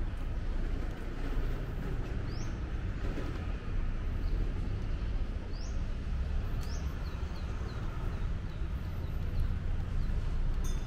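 A bird calling over a steady low rumble: three sharp rising chirps about 2, 5½ and 6½ seconds in, followed by a run of short notes.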